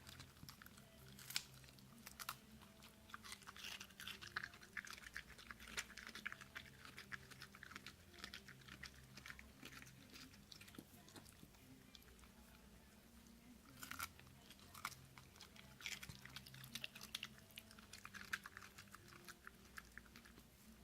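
West Highland white terrier crunching and chewing cucumber in quick spells of bites, with a quieter pause about halfway through.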